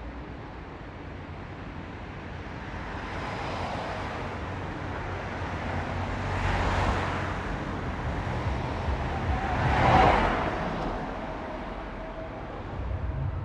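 Road traffic: vehicles passing by over a steady background rumble, one swelling and fading about halfway through and a louder one about three quarters of the way in.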